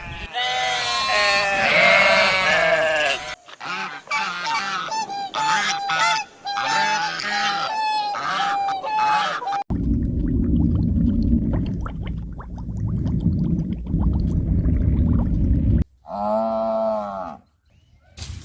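A run of edited animal-call clips: a few seconds of drawn-out pitched calls, then many short honk-like calls in quick succession, then several seconds of low rough noise, then one short pitched call near the end.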